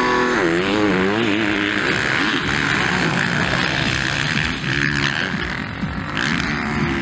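Motocross bikes racing, their engines revving up and down and running hard under throttle.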